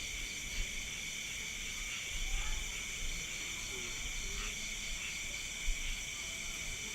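Night insect chorus, crickets trilling steadily in several overlapping high pitches, some pulsing, with a few faint low calls underneath.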